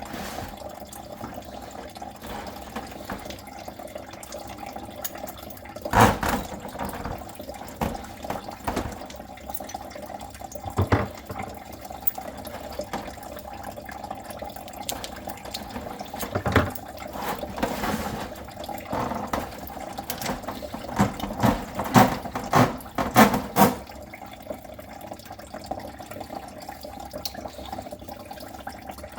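Water running in a blocked kitchen drain line during drain cleaning, a steady sound broken by scattered knocks and clanks, with a cluster of them a little past two-thirds of the way through.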